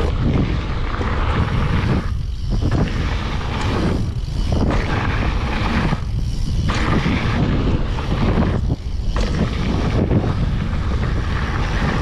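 Wind buffeting a GoPro's microphone on a moving mountain bike, with a steady low rumble from riding over a dirt trail. The hiss eases briefly four times.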